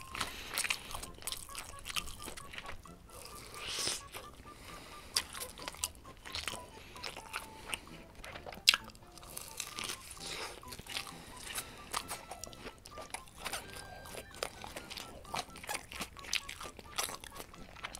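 Close-miked biting and chewing of a homemade giant fried chicken nugget made of ground chicken breast, its crisp breaded coating crunching in many sharp, irregular crackles.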